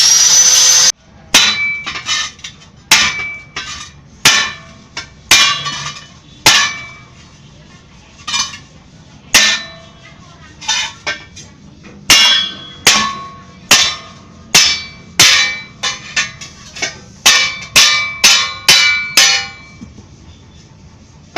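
A hammer striking steel, irregularly at about one to two blows a second, each blow leaving a short metallic ring. A loud steady power-tool noise cuts off about a second in.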